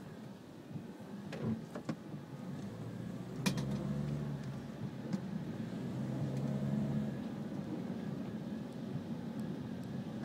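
Motor vehicle engine running with a steady low hum over a noisy background, and a short sharp knock about three and a half seconds in.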